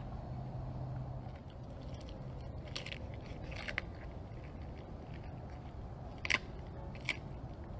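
Big cat chewing on prey, with several short sharp crunches over a low steady hum.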